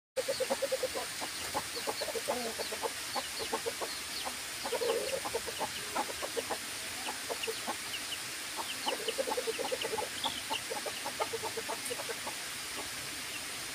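Chickens clucking in runs of short, quickly repeated low notes, with faint high chirps above them.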